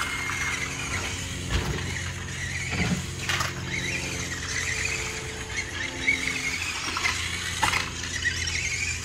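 Tamiya Grasshopper RC buggy's electric Mabuchi RS-380 motor and gearbox whining, the pitch rising and falling again and again as the throttle is worked around the track. A few sharp knocks come as the buggy hits bumps and jumps.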